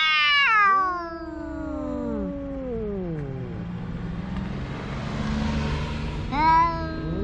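Cat meowing loudly in long, drawn-out calls that fall in pitch, several overlapping at the start, with another loud call near the end.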